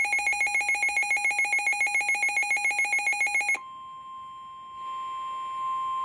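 A weather radio's alert alarm sounds a shrill, rapidly pulsing beep, about a dozen pulses a second, and cuts off abruptly about three and a half seconds in. The quieter, steady single-pitch NOAA Weather Radio 1050 Hz alert tone follows, which signals that a warning is about to be broadcast.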